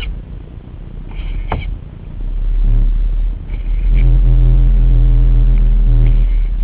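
Gusty wind buffeting the microphone with a heavy low rumble. There is a sharp tick about a second and a half in, and a steady low hum with overtones joins from about four seconds in.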